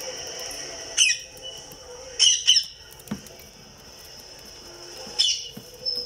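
Indian ringneck parakeet giving short, loud squawks that fall in pitch: one about a second in, two in quick succession a little after two seconds, and another near the end.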